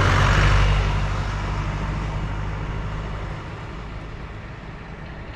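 Land Rover Defender 110 driving away on a dirt road: engine hum and tyre noise loudest at the start, fading steadily over the next few seconds as it pulls into the distance.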